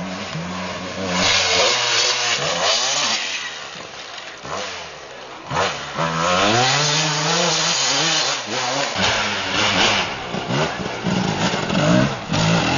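Enduro dirt-bike engines revving hard, the pitch climbing and falling several times as the riders open and close the throttle.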